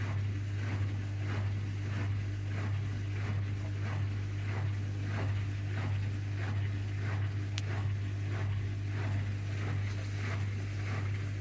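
AEG washing machine running a 95° cotton wash: a steady low hum with a rhythmic swishing that repeats about two to three times a second, and a single sharp tick about seven and a half seconds in.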